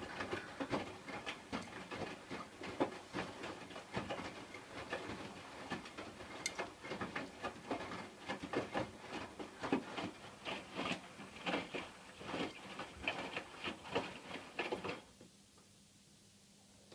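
Hotpoint washing machine in its wash phase, the drum turning so the wet laundry tumbles and sloshes with irregular patters and soft knocks. The drum stops about fifteen seconds in, the pause of a wash cycle before it turns again.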